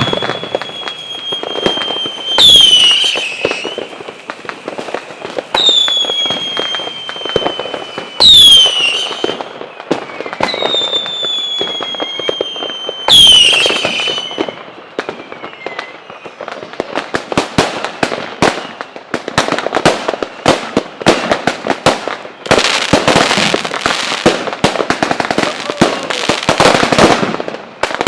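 New Year fireworks: three whistling fireworks, each a long high whistle ending in a loud bang, about five to six seconds apart. From a little past halfway, a long run of fast, dense firecracker bangs and crackling.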